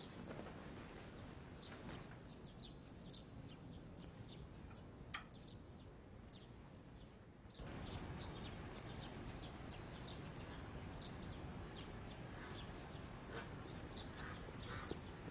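Small birds chirping over a steady background hiss, many short chirps all through, with one sharp click about a third of the way in; the hiss steps up about halfway through.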